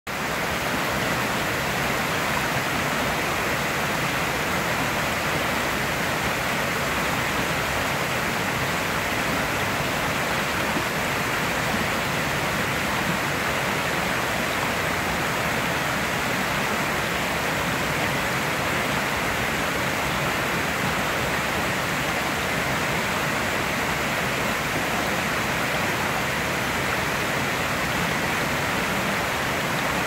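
Steady rush of water pouring over a low dam spillway and splashing through rocky riffles in the stream below, with no change in level throughout.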